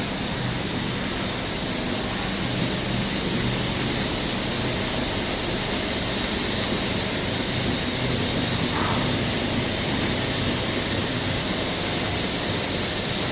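Silicone cable production line machinery running: a steady loud hiss with a low mechanical hum underneath.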